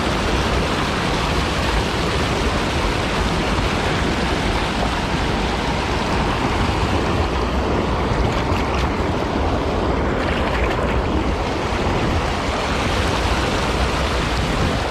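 Loud, steady rush of river water spilling over a low concrete dam into churning whitewater.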